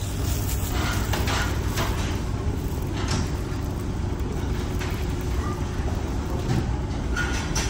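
Steady low machinery rumble, with a few faint clinks and taps over it.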